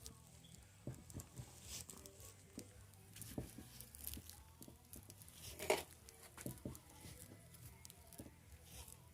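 Light, scattered clicks and taps of tools on metal, with one sharper click about halfway through, over a faint low hum.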